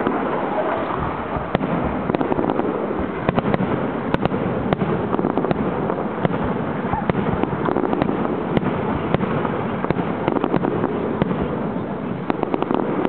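Aerial fireworks display going off in a continuous barrage: dense crackling with many rapid sharp cracks and pops over a steady rumbling wash.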